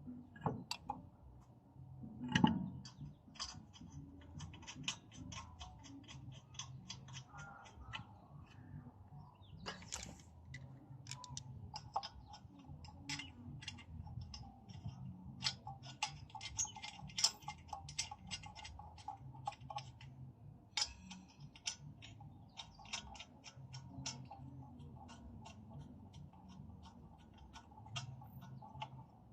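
Ratchet wrench clicking in runs of quick, even ticks, about five a second, as the wheel nuts are run on while a road wheel is refitted. A single loud knock comes about two seconds in.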